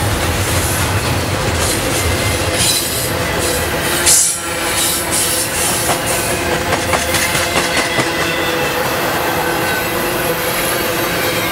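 Double-stack intermodal container train rolling past: a steady rumble and rattle of the well cars, the wheels clicking over the rail joints, with thin steady squealing tones from the wheels. A short louder burst comes about four seconds in.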